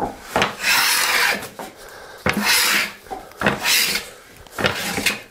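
Long hand plane (a jointer plane) taking about four strokes along a quarter-sawn oak board, each a shaving hiss with short pauses between, the first and longest lasting about a second. The strokes are taken in the middle of the board to flatten its face.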